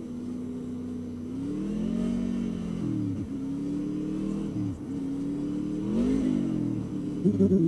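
Honda VFR800's V4 engine pulling and easing off while filtering through slow traffic, its note climbing and dropping back sharply several times.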